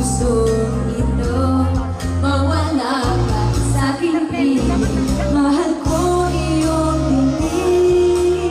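A Tagalog pop song playing: a wavering sung melody over a steady bass line and drum beat.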